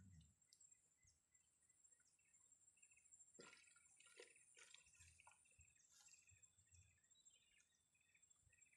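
Near silence: faint outdoor ambience with a steady high insect hum, a run of short repeated chirps starting about halfway through, and a few faint clicks.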